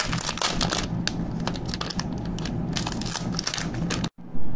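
Eraser packaging being torn open and peeled off by hand: a dense run of quick crinkles and crackles. It cuts off abruptly about four seconds in and is followed by a short, louder thump.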